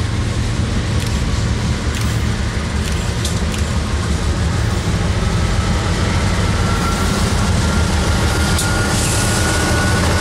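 BNSF diesel-electric locomotives at the head of a freight train running as they approach and pull alongside, a deep engine rumble growing steadily louder. A faint whine rises slowly in pitch through the second half.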